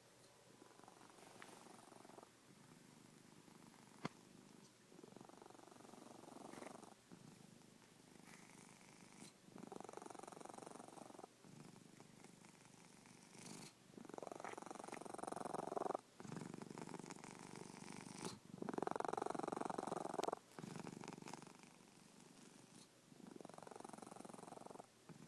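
Cat snoring: a rasping sound on each in-breath and out-breath in a steady rhythm, the louder breaths about every four to five seconds.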